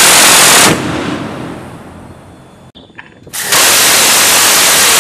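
Phalanx CIWS 20 mm six-barrel Gatling cannon firing bursts, each one continuous sound rather than separate shots. The first burst stops just under a second in and dies away over about two seconds; a second burst starts about three and a half seconds in.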